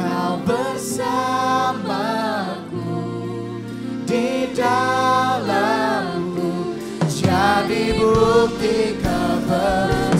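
Indonesian contemporary worship song sung by a lead vocalist with backing singers in sustained phrases, over steady held chords.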